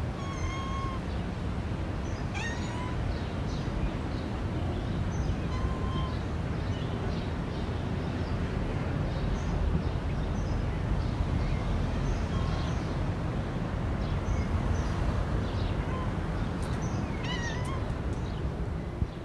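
A cat meowing several times, short calls, over a steady low background noise.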